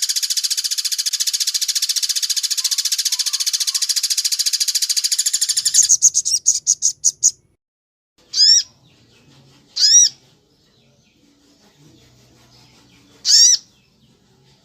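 A songbird singing: a fast, dense trill that slows into separate pulses and stops about seven seconds in, followed by three single notes that rise and fall, more than a second apart.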